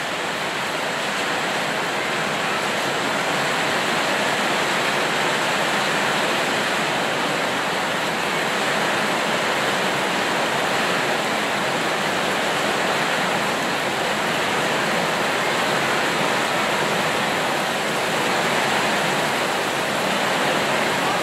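Rain falling steadily, a dense, even hiss that holds at the same level throughout.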